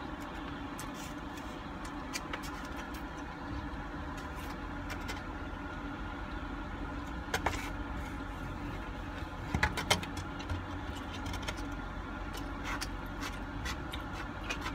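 Steady low drone of a car engine idling, heard inside the cabin, with a few sharp clicks of a plastic fork against a styrofoam takeout box about seven and ten seconds in.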